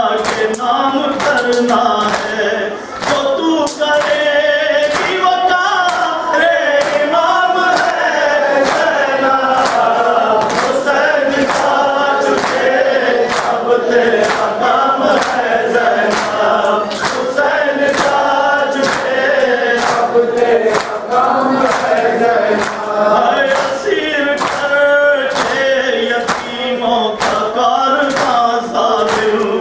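Men's voices singing a noha (Muharram lament) together, over a steady beat of hands slapping chests in matam, roughly one and a half strikes a second.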